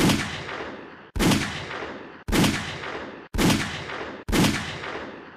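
Five pistol shots about a second apart, each a sharp crack that rings out and is cut short by the next: Buffalo Bore 100-grain hardcast .380 ACP rounds, standard pressure and +P, fired from a 9mm pistol.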